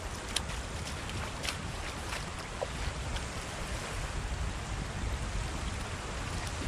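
Wind noise on the microphone over the wash of shallow surf, with a few splashing steps of rubber waders through ankle-deep water in the first couple of seconds.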